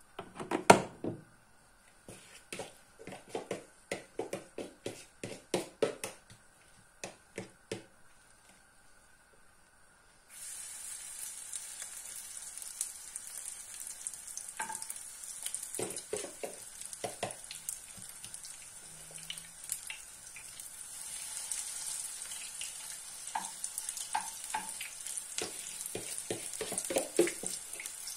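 A spoon taps and scrapes in quick, sharp knocks for several seconds. About ten seconds in, hot vegetable oil starts a steady sizzle as spoonfuls of chopped-onion, egg and semolina batter go in to fry as onion patties, with more spoon knocks on the pan.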